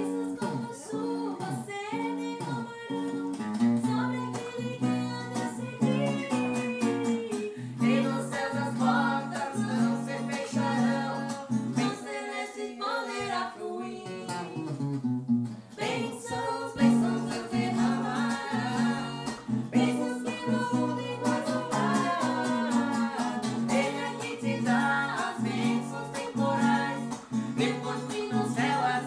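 Acoustic guitar strummed in steady chords, accompanying a woman singing a hymn.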